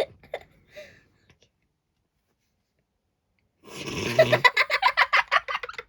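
Dead silence for about two seconds, then a sudden burst of rapid, breathy laughter, about six pulses a second, fading toward the end.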